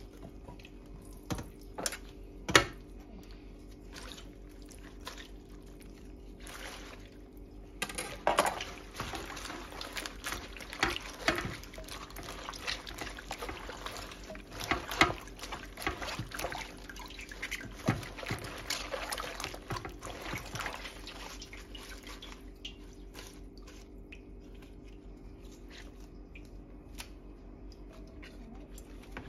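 Water splashing, trickling and dripping as scallions are washed by hand in a stainless steel bowl in a sink, with a few sharp clacks in the first few seconds. The splashing is busiest through the middle and thins to drips near the end, over a steady low hum.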